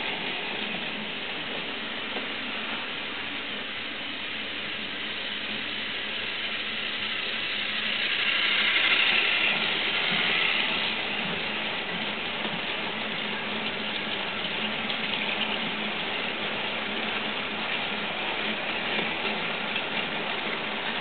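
Plarail battery-powered toy train, a long rake of coaches pulled by two locomotives, running past on blue plastic track: a steady whirring rattle of many small plastic wheels on the track. It grows louder about eight to eleven seconds in, as the red locomotive passes closest.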